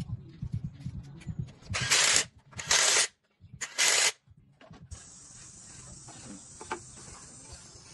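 Light mechanical clicking, then three short, loud hissing blasts, each about half a second long, about two, three and four seconds in. A faint steady high hiss follows from about five seconds in.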